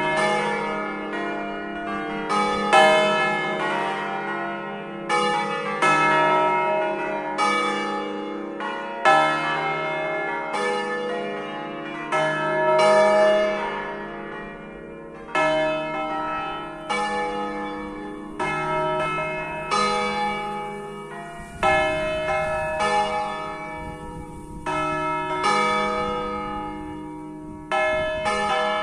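A five-bell church peal tuned in E-flat (E♭, F, G, A♭, B♭), bronze bells cast by Giorgio Pruneri of Grosio and by Luigi and Giorgio Ottolina, swinging and ringing. The bells strike one after another every second or two in changing patterns, each stroke ringing on under the next.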